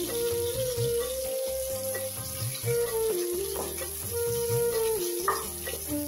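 Background instrumental music, a simple stepping melody over a steady beat, over sliced onions sizzling in hot oil in a pressure cooker as they are stirred with a wooden spatula.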